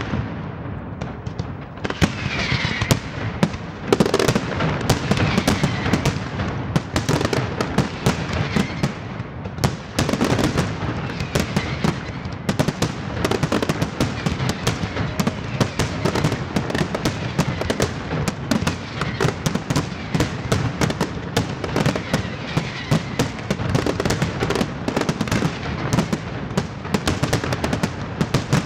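Professional aerial fireworks display: many shells bursting in rapid, overlapping succession, a dense, unbroken barrage of bangs and crackling.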